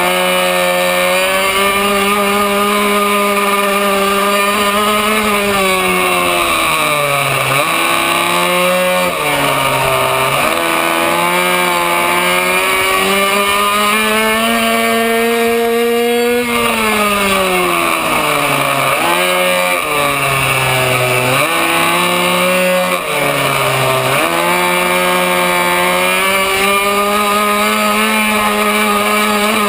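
Racing minibike engine at high revs, heard from a camera mounted on the bike: the note climbs and holds on the straights, then drops sharply each time the rider shuts off for a corner, several times in a row.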